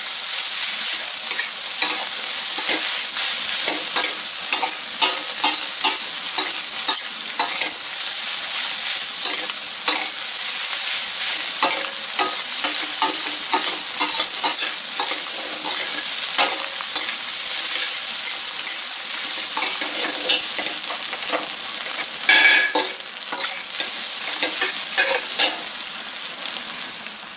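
Fried rice sizzling in a stainless steel wok as a metal spatula stirs and scrapes it, with frequent clinks and scrapes of the spatula against the pan. Late on there is one louder, ringing metal scrape.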